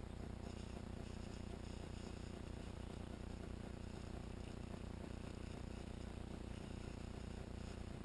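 Faint insect chirring that starts about half a second in and stops shortly before the end, over a steady low hum.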